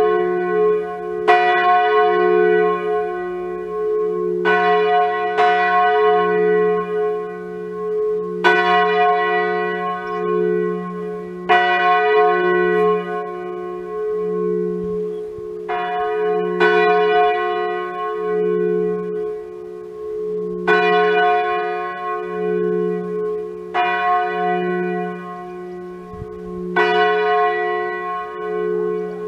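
Large church bell tuned to F3, cast by Grassmayr in 2011, swung electrically in full-circle style. Its clapper strikes at uneven gaps of about one to four seconds, and the deep hum rings on without a break between strikes.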